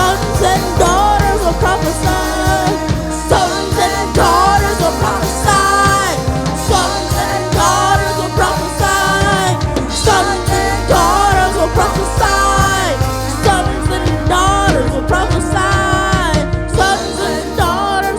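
Worship music: a voice singing over a band with bass and drums.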